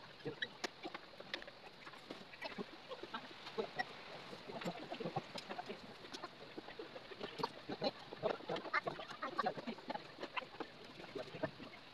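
Hand screwdriver turning screws into a particleboard computer desk, giving short irregular squeaks and clicks.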